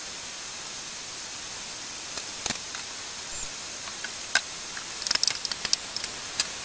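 Mushrooms and onions sizzling steadily in a pan on high heat as their released liquid steams off. A few light clicks, then a run of short scraping clicks about five seconds in as a wooden spatula stirs them against the pan.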